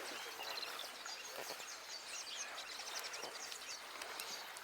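Wild birds chirping: many short, high chirps, faint, over a steady outdoor hiss.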